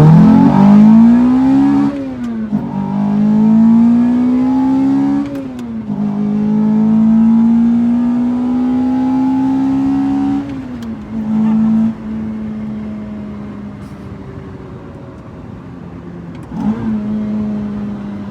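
Lotus Elise's 2ZZ-GE 1.8-litre inline-four, heard from inside the cabin, pulling hard through the gears. The engine note climbs and drops three times at upshifts, then settles into a quieter steady cruise with a brief rev near the end.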